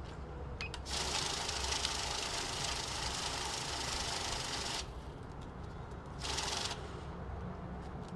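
Safescan banknote counter whirring as a stack of $100 bills riffles through it for about four seconds, then a brief second run of about half a second. Light clicks and rustles of the bills being handled around it.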